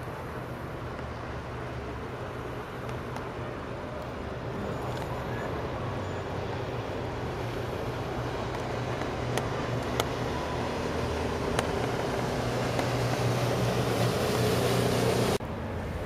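An engine running steadily with a low hum, slowly growing louder, then cut off abruptly near the end.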